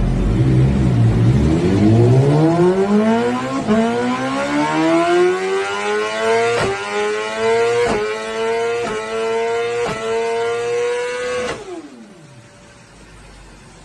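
BMW S 1000 / M 1000 series motorcycle's inline-four engine accelerating hard, its exhaust note climbing steadily in pitch, with about five short sharp cracks along the way. Near the end the note falls away and fades out.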